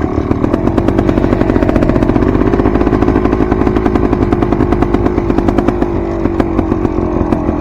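Dirt bike engine running steadily under throttle while riding, with a fast even firing pulse; the pitch climbs a little a couple of seconds in, then holds.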